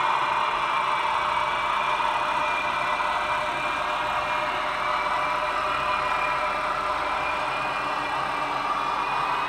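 Roco H0-scale model of the ČD 'Taucherbrille' diesel locomotive running along the track, a steady engine-like drone with a faint wavering whine.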